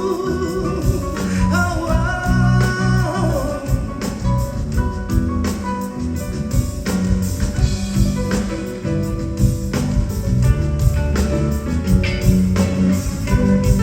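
Live band playing a pop ballad, with guitar and drums and some singing, as an instrumental stretch between vocal lines.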